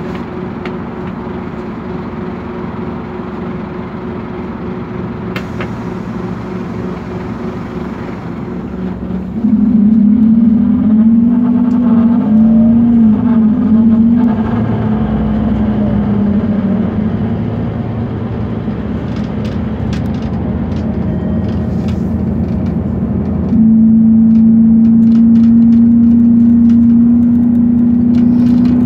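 Scania K230UB city bus running, heard from inside, with a loud low drone that comes in about a third of the way through, wavers up and down in pitch, and fades after several seconds. It then returns steady near the end. The drone is the noise of a fault the owner could not identify.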